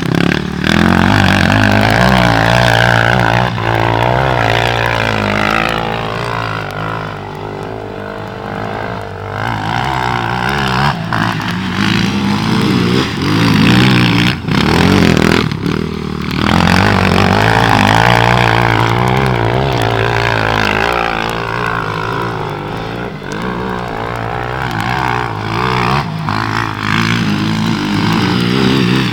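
Sport ATV's single-cylinder four-stroke engine revving up and down again and again, the pitch rising and falling over a few seconds at a time with short throttle blips between.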